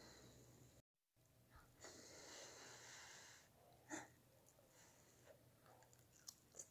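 Faint sounds of a child eating from a spoon: a soft breath lasting about a second and a half, then a sharp click near the middle and a few small mouth and spoon clicks.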